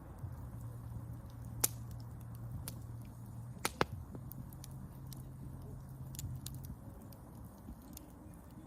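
Wood fire crackling, with scattered sharp pops, the loudest about one and a half seconds in and a pair near four seconds, over a low steady hum that stops about seven seconds in.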